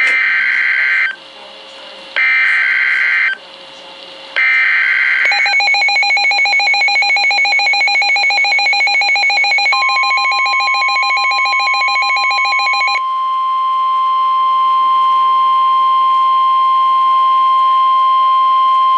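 NOAA Weather Radio alert signal from a Midland WR100 weather radio: three short bursts of screeching digital SAME header data, then a rapidly pulsing electronic alert alarm, with the steady 1050 Hz warning tone joining about ten seconds in. Together they announce a new warning, here a severe thunderstorm warning.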